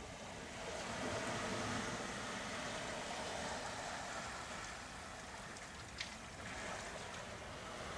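Surf washing on the beach ahead, heard as a steady rushing noise that swells a little about a second in, with a single sharp click about six seconds in.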